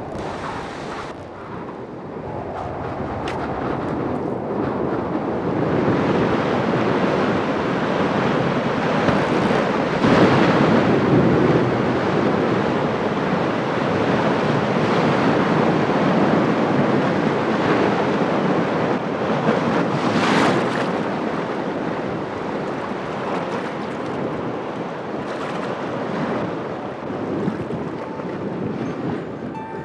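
Strong wind and wind-driven waves churning on choppy water: a steady rushing noise that swells and eases, with louder surges about a third and two-thirds of the way through.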